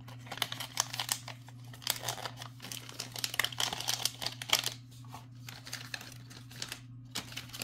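Plastic bags of beads crinkling and rustling as they are handled, in irregular bursts of crackle that are busiest over the first five seconds and pick up again near the end. A steady low hum runs underneath.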